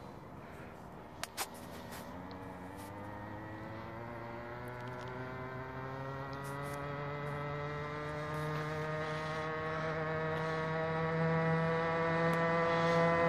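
Homelite 23cc two-stroke trimmer engine on a friction-drive motorized bicycle, running at high revs as the bike approaches, growing steadily louder with its pitch slowly rising. Two sharp clicks about a second in.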